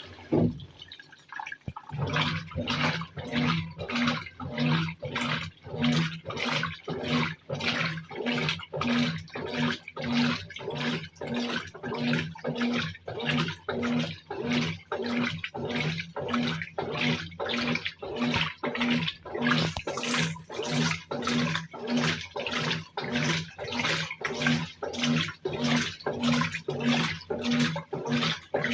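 Brastemp 17 kg top-loading washing machine beginning its turbo agitation about two seconds in, after the water fill stops. The motor hums in short back-and-forth strokes, about two a second, each one sloshing the water and clothes.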